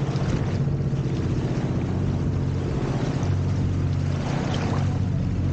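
Motorboat engine running steadily, a low, even note with rapid firing pulses.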